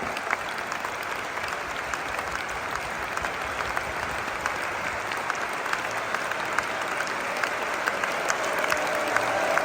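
Large football stadium crowd applauding, a dense patter of clapping over the murmur of thousands of voices. The crowd noise grows louder near the end.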